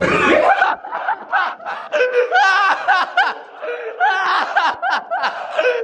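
A young man laughing hard in quick repeated bursts, a wavering, breathy cackle.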